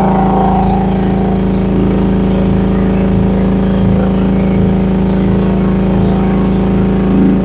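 Rippa R10 mini excavator's gasoline engine running steadily at constant pitch with the hydraulic pump engaged, as the machine is worked through a slewing test.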